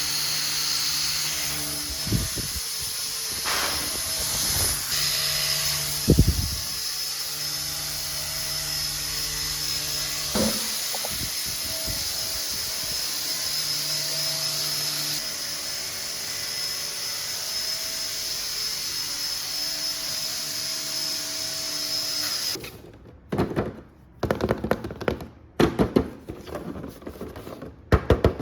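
Small electric motor of a toy RC car running with a steady high whine, with a few knocks along the way. It cuts off suddenly about 23 seconds in, followed by irregular clicks and plastic handling noises.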